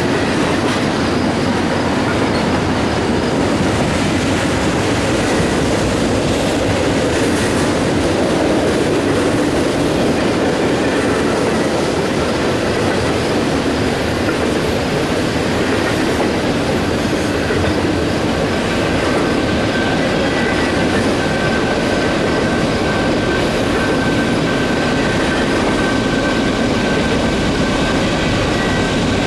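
Intermodal freight cars rolling past at steady speed, a continuous rumble and clatter of steel wheels on rail. A faint high wheel squeal rises from the curving track, clearest in the second half.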